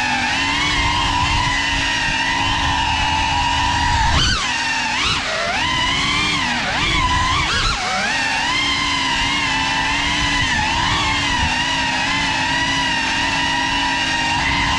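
Whine of a GeprC Cinelog 35 cinewhoop's ducted propellers and brushless motors, heard from the onboard GoPro. Its pitch holds mostly steady, rising and falling with the throttle in a sharp swoop about four seconds in and several dips a little later.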